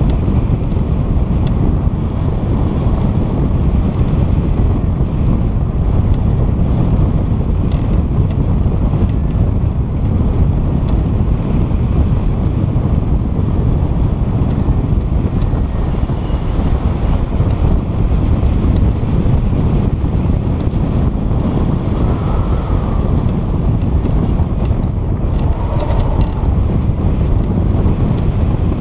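Loud, steady wind rumble buffeting the microphone, with a few faint ticks in it.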